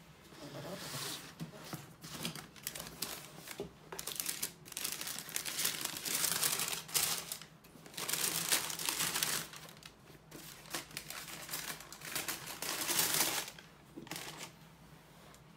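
Tissue paper rustling and crinkling in a shoebox as it is folded back and the sneakers are handled, with light taps and scrapes on the cardboard box. It comes in several louder bursts of a second or two.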